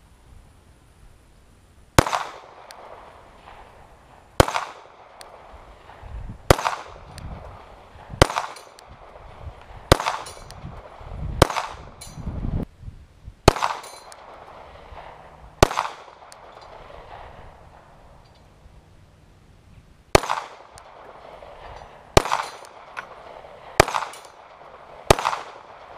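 Slow, deliberate 9mm shots from a Glock 43 pistol, about a dozen, spaced roughly two seconds apart with a longer pause in the middle, each trailing off in an echo. The rounds are aimed at a small steel spinner target.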